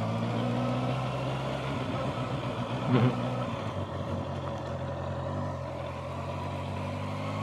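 Honda CBR650R's inline-four engine running at a steady low speed, with a brief knock about three seconds in.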